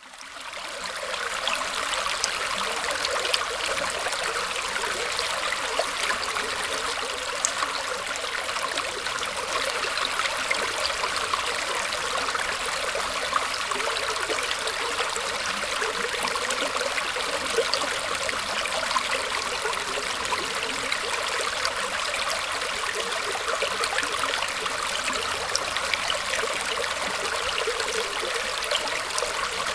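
Small stream of water trickling and flowing through tree roots: a steady, even babble with fine splashy detail. It fades in over the first second.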